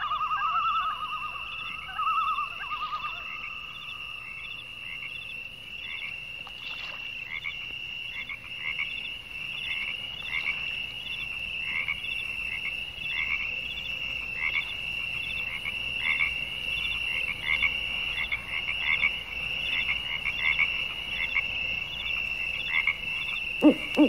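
A steady animal chorus: a continuous high trill with short repeated calls, one to two a second, and a lower pulsing trill that fades out about five seconds in.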